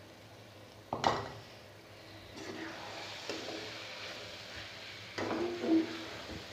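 A slotted metal spoon stirring okra and chopped green chillies in a metal pot, with a sizzle. The spoon clinks against the pot about a second in and knocks on it a couple more times near the end.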